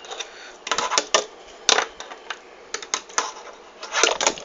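Sharp wooden clacks and taps from a fingerboard being handled and knocked against a hard surface: about eight irregular clicks, some in quick pairs, with a cluster near the end.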